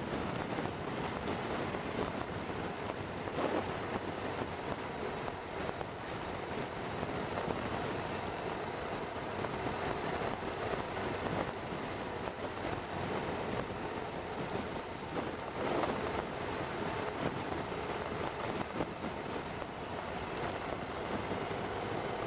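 A motorcycle on the move: a steady rush of wind and road noise on the microphone, swelling and easing a little in gusts, with no distinct engine note standing out.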